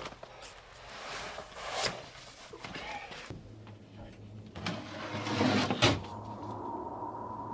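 Several separate knocks and clatters, like objects being handled and set down, followed about six seconds in by a faint steady hum.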